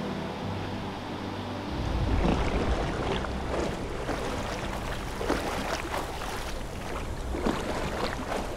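Sea water splashing and sloshing close to the microphone as surfers paddle out through breaking surf. The sound grows louder about two seconds in, with irregular splashes after that.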